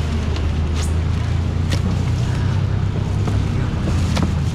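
A steady low, engine-like hum under a few short, sharp crackles of plastic bags being handled at a seafood stall.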